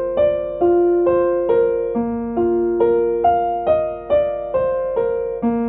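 Background music: a gentle electric piano playing a melody of evenly paced notes, about two a second.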